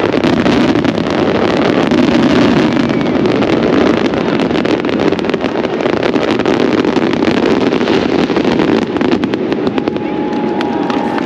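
Fireworks going off in a dense, continuous barrage of rapid crackling pops and bangs, easing slightly near the end.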